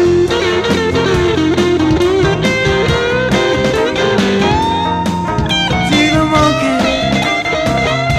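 Blues-rock instrumental break: a lead guitar plays sliding, bending notes over bass and a steady drum beat.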